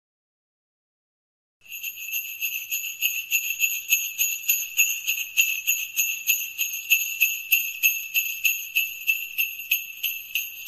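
Silence for about a second and a half, then jingle bells shaken in a steady rhythm, about three shakes a second.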